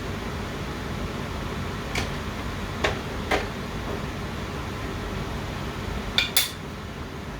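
Kitchen utensils clinking against dishes and pots: three light knocks a couple of seconds in, then two sharper clinks in quick succession near the end, over a steady background hiss.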